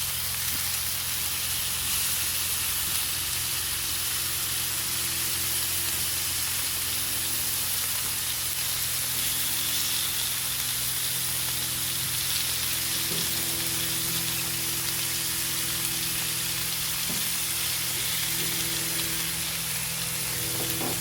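Thin-sliced ribeye sizzling steadily in hot grease in a cast iron frying pan, over a steady low hum.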